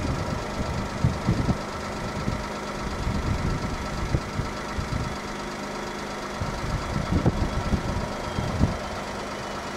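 Boeing 757-200's jet engines running at low thrust as the airliner lines up for take-off: a steady whine with a low hum. Irregular low thumps of wind buffet the microphone.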